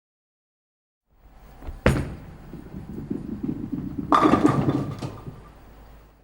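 A sharp knock or thump about two seconds in, then a stretch of clattering noise with a second loud burst about four seconds in, fading out near the end.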